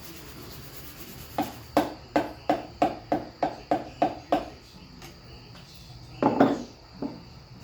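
A run of about nine evenly spaced sharp knocks, roughly three a second, then a louder clatter about six seconds in. This is tool work while fitting a Yamaha XS650 piston into its cylinder with a piston ring compressor.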